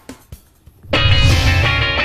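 Background music: quiet and sparse at first, then loud music with a deep bass starts suddenly about a second in.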